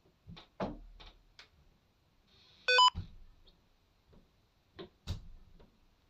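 A few soft knocks and clicks, then a short electronic beep sequence of quickly stepping tones, the loudest sound, followed by a few dull thumps.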